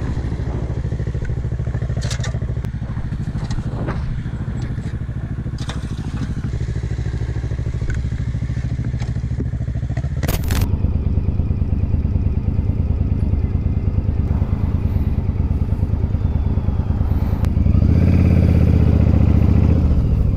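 Motorcycle engine running at low road speed, recorded close on the bike, with a few sharp clicks in the first half. It gets louder about halfway through and louder again near the end.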